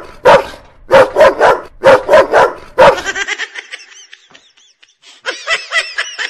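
Fake dog barking for a prank: about eight loud, rapid barks, then fainter high, wavering calls near the end.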